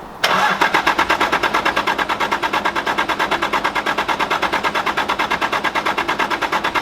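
Starter motor cranking the HJ47 Land Cruiser's 2H naturally aspirated six-cylinder diesel. It turns over with an even beat of about ten compression pulses a second and cuts off abruptly without the engine catching.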